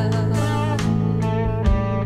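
Band music with guitar and drum hits, played back through a pair of Monitor Audio Platinum 200 Gen 3 loudspeakers and picked up by room microphones.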